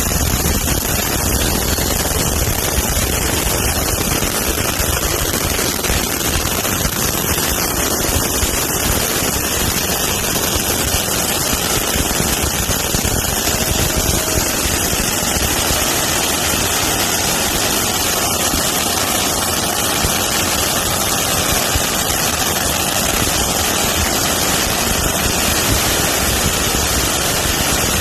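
Many Safe and Sane ground fountain fireworks burning at once, making a loud, steady, dense hiss with no separate bangs.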